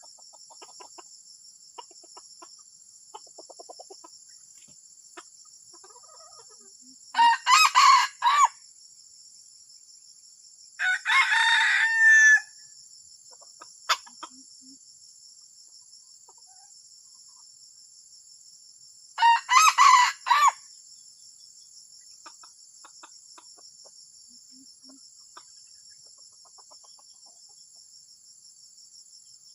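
A junglefowl rooster crowing three times, each crow short, about a second and a half, and broken into a few notes. A steady high insect drone runs underneath.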